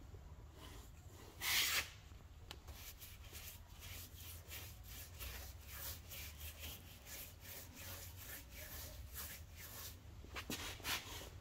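Bristle paintbrush scrubbed over the metal wheel arch of a Volkswagen Golf Mk2, brushing on paint in short scratchy strokes, about three a second. A brief louder rustle about one and a half seconds in.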